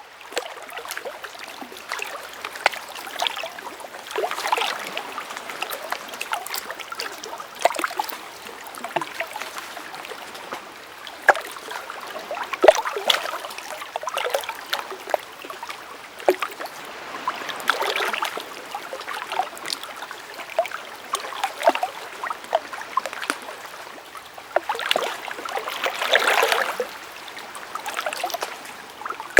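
Shallow stream running over stones, a continuous babbling with frequent small splashes and gurgles that swell now and then, loudest about 26 seconds in.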